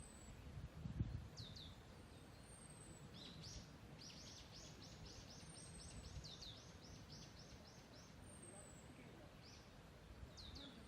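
Forest birds singing faintly: thin, high falling whistles repeat every couple of seconds, and one bird gives a rapid trill of evenly repeated notes for about three and a half seconds in the middle. A soft low thump comes about a second in, over a faint low rumble.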